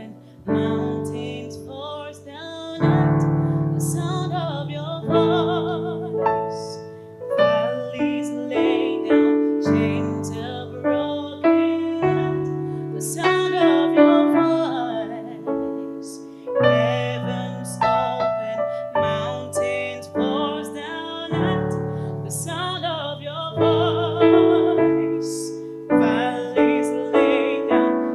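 Piano playing slow struck chords that ring out and fade, with a voice holding long wavering notes over them.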